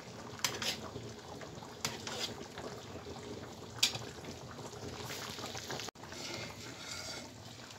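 Hot sugar syrup being spooned over a bread dessert in an aluminium tray on the stove, trickling and bubbling, with a few light clinks of the spoon against the metal.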